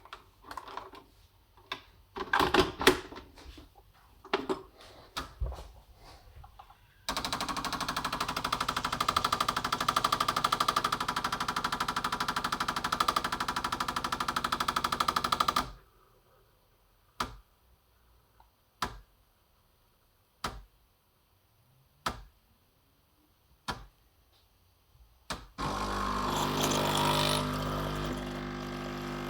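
Clicks and knocks as a coffee disc is loaded into a Bosch Tassimo coffee machine, then the machine's pump runs with a loud, fast rattling buzz for about eight seconds and cuts off. Single clicks follow about every second and a half, and near the end a louder hiss with a low hum starts up.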